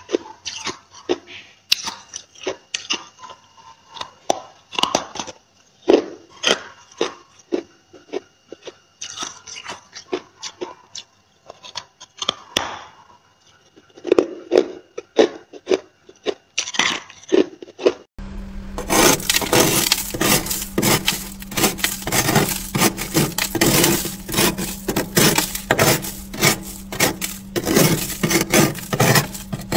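Crisp crunching and crackling as freezer frost is bitten and chewed, in separate sharp crunches with short pauses. About 18 seconds in it changes to a metal spoon scraping built-up frost off a freezer's inner wall: fast, continuous rasping strokes over a steady low hum.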